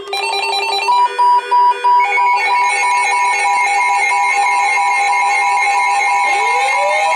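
Emergency alert tones sounding from several receivers at once. A steady tone is joined about a second in by pulsing tones near 1 kHz, which turn steady and stack up. Near the end a tone begins rising in pitch.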